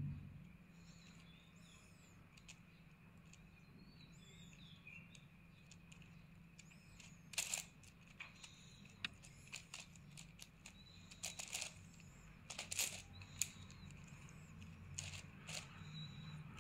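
Plastic 9×9 speed cube being turned by hand: its layers click and clack in irregular bunches. The clicks start about seven seconds in, with a few sharp, louder clacks among them.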